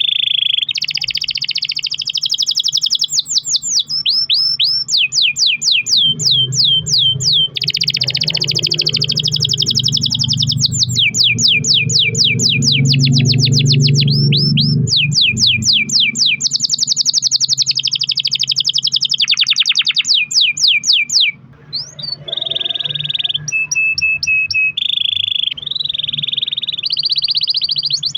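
Domestic canary singing a long, unbroken song of rapid trills and rolls, switching from one fast repeated phrase to the next every second or two, with a brief pause about two-thirds of the way through.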